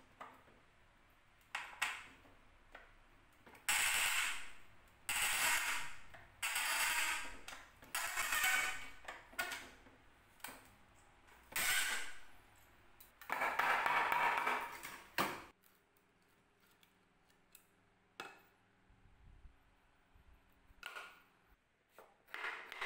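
Pincers levering old nails out of a wooden table-frame joint: about seven drawn-out creaking squeaks as the nails work loose from the wood, the last and longest lasting about two seconds. A few light knocks follow near the end.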